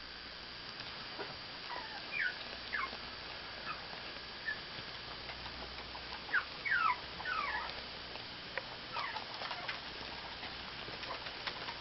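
Newborn kittens mewing: short, thin, high-pitched squeaks that slide in pitch, in small clusters of a few at a time, loudest a little after the middle.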